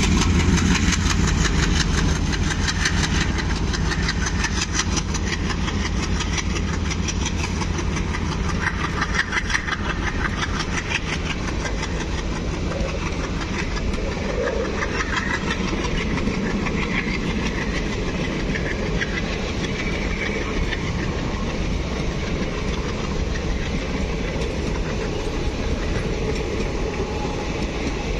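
Diesel-hauled passenger train pulling away: the locomotives' engines work hard at first and fade as the coaches roll past with a steady clickety-clack of wheels over the rail joints.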